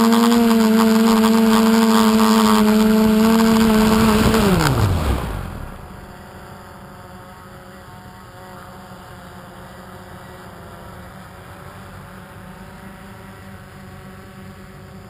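The motor and propeller of an FPV model aircraft run at a steady pitch, then wind down quickly in a falling whine and stop about five seconds in as the craft comes to rest on the ground. After that only a faint steady hum remains.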